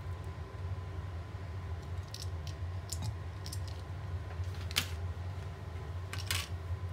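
Light, scattered clicks and taps of a silicone spatula and a cream cheese wrapper being handled over a glass measuring jug, with a sharper click just before five seconds in and two more near the end. A steady low hum runs underneath.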